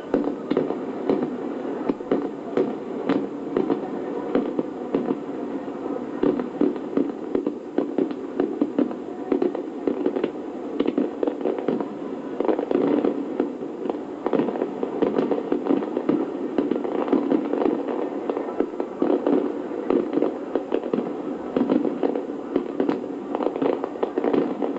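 Fireworks display in a dense barrage: many shells bursting in quick, irregular succession over a continuous rumble of overlapping reports, heard through a television broadcast.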